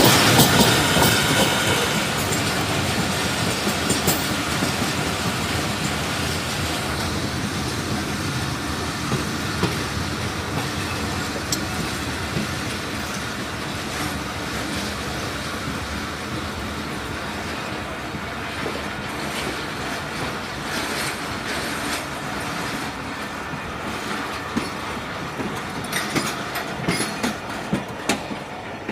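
Train wheels rolling over the track: a steady rumble and clatter, loudest at the start and slowly fading. Sharp wheel clacks at the rail joints stand out singly near the end.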